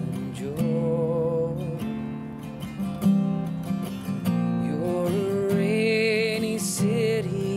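Strummed acoustic guitar with a man singing slow, long-held notes with vibrato, the longest held note in the second half.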